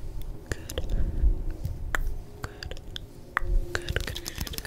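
Close-miked hand and small plastic object sounds: scattered sharp clicks and taps with soft low thumps as hands move right at the microphone.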